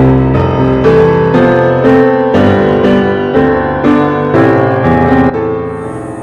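Background piano music, notes struck about twice a second, fading out near the end.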